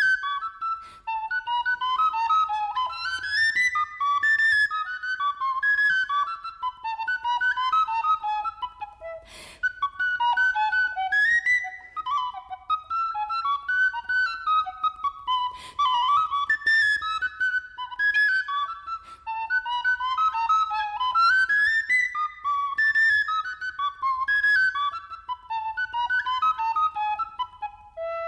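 Unaccompanied recorder playing a fast virtuoso passage of rapid running notes, rising and falling scales and arpeggios. There are two brief clicks partway through, and the passage ends on a short lower note.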